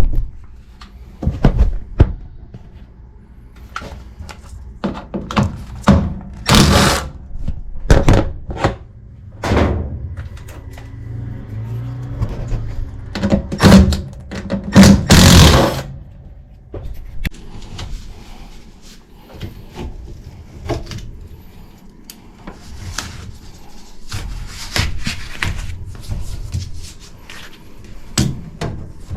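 Irregular knocks, thunks and scrapes of an old air handler cabinet and its sheet-metal parts being worked loose and moved, with a longer, louder scrape about fifteen seconds in.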